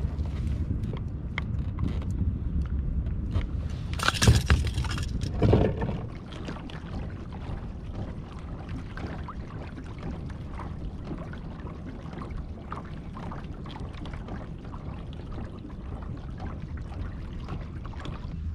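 Water sloshing and lapping against a small fishing kayak, over a low rumble for the first six seconds. Two loud, sudden bursts of knocking and splashing come about four and five and a half seconds in. After them the lapping goes on more quietly, with small knocks and ticks.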